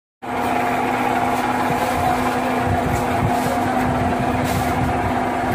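Large engine lathe running, spinning a heavy rubber-coated roller on its repaired shaft: a steady machine hum with a low drone and a higher whine.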